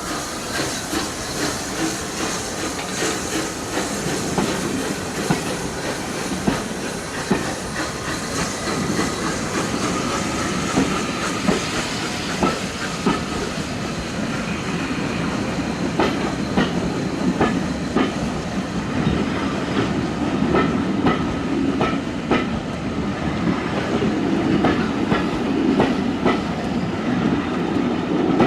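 Steam-hauled train rolling past, its carriage wheels clicking over rail joints in an uneven run of clicks over a steady rumble, growing louder toward the end.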